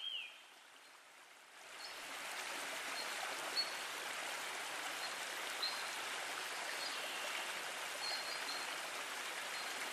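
Steady rain, fading in about a second and a half in and then holding even, with a few faint high chirps here and there.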